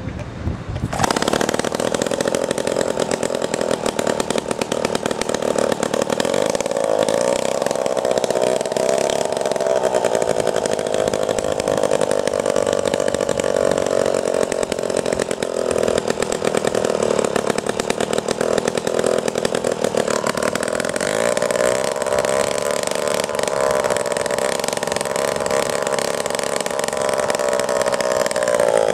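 Vintage Homelite 26LCS two-stroke chainsaw engine running steadily, its pitch wavering at times and rising slightly about twenty seconds in. It comes in loudly about a second in, and its governor is holding the engine speed.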